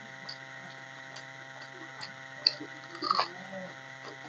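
Fingers working rice on a steel plate, with a few small clicks and taps of fingers and rings against the metal. The loudest come about two and a half and three seconds in, over a steady electrical hum.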